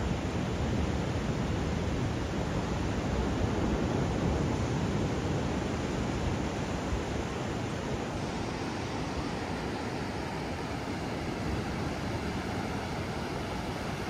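Ocean surf breaking and washing up the beach: a steady rush of waves that swells a few seconds in and eases a little after about eight seconds.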